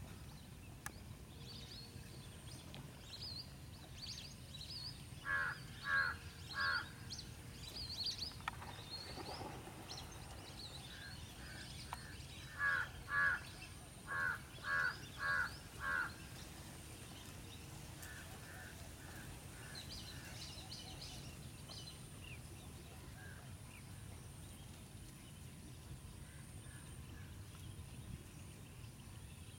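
A bird calling in short repeated notes: three about five seconds in, then a run of about seven between twelve and sixteen seconds, with fainter ones after. Smaller birds chirp here and there over a low, steady outdoor background noise.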